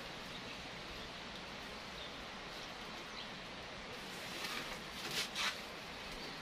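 Steady low background hiss, then from about four seconds in a few short rustles of a wrapping being handled.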